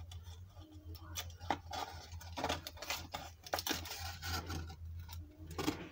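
Metal eyelet-setting pliers clicking and squeezing as an eyelet is pressed flat through card and a PVC sheet, with irregular scrapes and paper handling and a sharper click just before the end, over a steady low hum.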